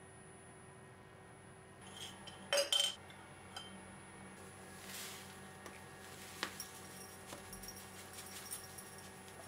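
A quick cluster of sharp ceramic clinks about two and a half seconds in, then a rustle and, near the end, light pattering as dry mate tea leaves are poured from a paper bag into a ceramic cup.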